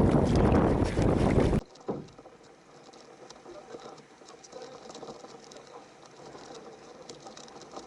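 Strong wind buffeting the microphone, cutting off abruptly about a second and a half in; after that only faint scattered ticking and rustling.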